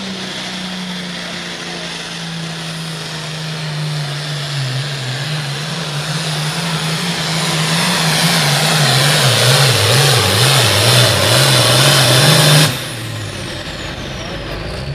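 Turbocharged diesel engine of a Super Farm pulling tractor at full power dragging a weight-transfer sled, growing louder, its engine speed wavering up and down in the last stretch of the pull. About thirteen seconds in the engine is cut off suddenly, and a high whine winds down afterwards as the turbo spools down.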